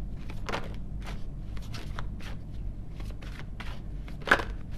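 A tarot deck being shuffled by hand: a run of short card slaps and rustles, two or three a second, with one louder slap about four seconds in.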